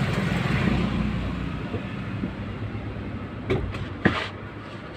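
A low vehicle rumble that fades away, then two sharp metal clanks about three and a half and four seconds in as a long jack-handle rod is worked to lower a car's spare tyre.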